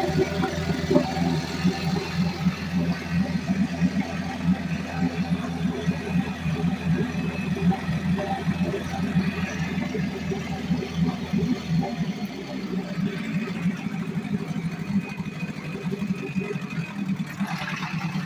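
1983 Johnson Seahorse 4.5 HP two-stroke outboard motor running steadily in a test barrel, its propeller churning the water.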